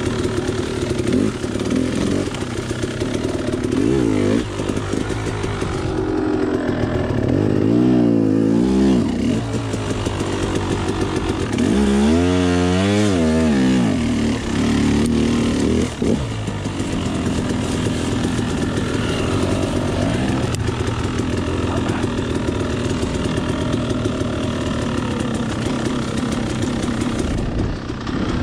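Dirt bike engine running while riding off-road, revving up and dropping back again and again. The clearest rises and falls come about a third of the way in and near the middle.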